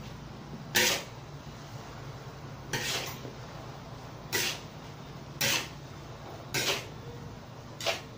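Metal spatula scraping and knocking against a large aluminium wok as a big batch of fried rice is stirred and turned, about six or seven strokes a little over a second apart.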